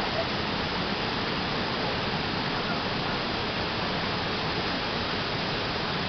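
Waterfall of about 8–10 m pouring into a pool: a steady rush of falling water.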